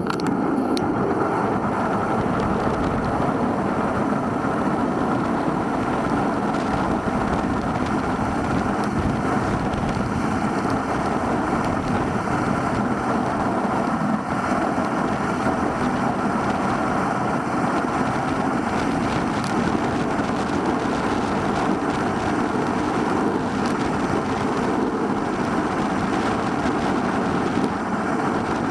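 Steady rush of wind and tyre noise from a bicycle moving at riding speed, picked up by a handlebar-mounted camera.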